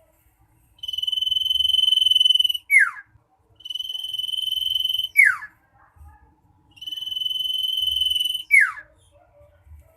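Common iora (cipoh) singing loudly: three phrases, each a long steady high whistle of about two seconds that ends in a quick downward-sliding note.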